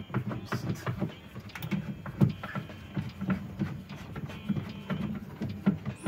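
Screwdriver driving screws into a refrigerator's plastic temperature-control housing: a run of short clicks and knocks as the screws are turned and the plastic is pressed into place, over a low continuous background murmur.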